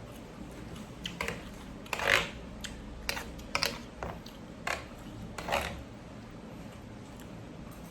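A person eating a bowl of noodle soup: about eight short, sharp eating and utensil noises, the loudest about two seconds in.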